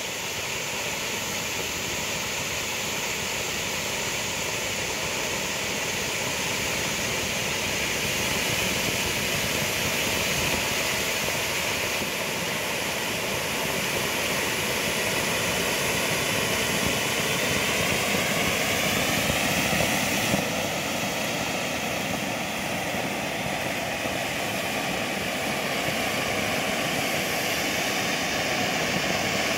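Two Bugano/Zink firework fountains, a No. 8 silver with red stars and a No. 9 gold with green stars, burning together with a steady, loud rushing hiss of jetting sparks, a faint wavering whistle running through it.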